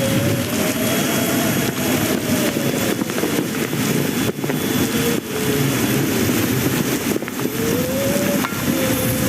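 Plane taking off: loud, steady engine noise with a tone that wavers up and down in pitch.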